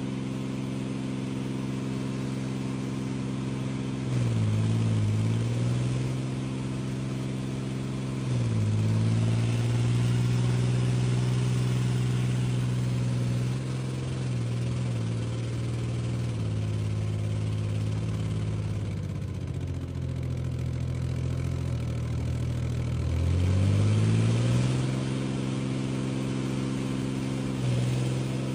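Infantry fighting vehicle's diesel engine running under load while it fords a stretch of water. Its note dips and climbs back three times as the throttle changes: about four seconds in, about eight seconds in, and again near the end, where it rises loudest.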